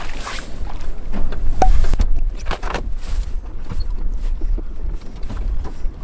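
Wind rumbling on the microphone on an open boat, with two short rushing noises on the water, one at the start and one about two and a half seconds in, and a sharp click with a brief ring about a second and a half in.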